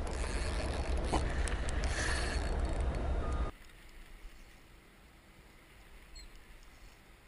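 Wind buffeting the microphone over open water, a steady rumbling rush with a few faint clicks, that cuts off abruptly about three and a half seconds in, leaving only faint, quiet background noise.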